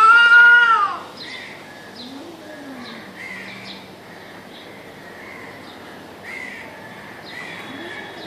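Cats caterwauling in a standoff: a loud, drawn-out yowl that rises and falls and ends about a second in, then two low, drawn-out moans, one a couple of seconds in and one near the end. Birds call faintly in short, repeated notes throughout.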